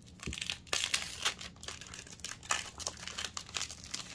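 Foil wrapper of a Yu-Gi-Oh! booster pack crinkling irregularly as it is handled and opened, with a soft thump about a third of a second in.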